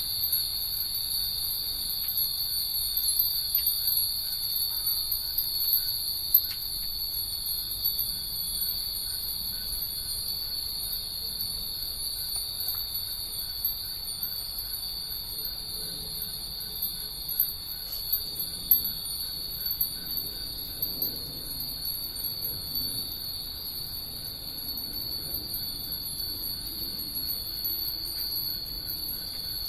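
Hundreds of Japanese wind bells (fūrin) tinkling together in a continuous high shimmer, with a few sharper, louder clinks standing out, about six seconds in and again around seventeen to nineteen seconds.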